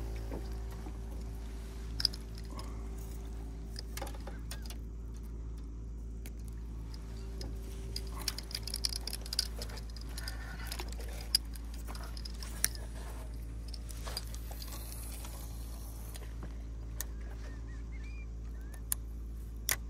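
A steady low hum with scattered light clicks and rattles, a sharper click about two seconds in and a cluster of small clicks near the middle.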